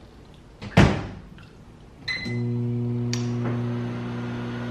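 Over-the-range microwave oven: the door shuts with a thunk, a single keypad beep follows about a second later, and then the oven starts up with a steady hum.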